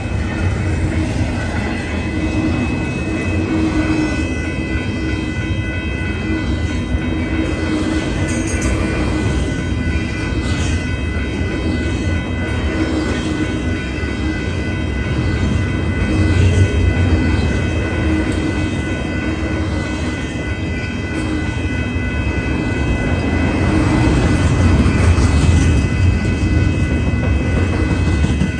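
Union Pacific double-stack container train's well cars rolling past: a steady rumble and rattle of steel wheels on rail, swelling twice, with thin high steady ringing tones running over it.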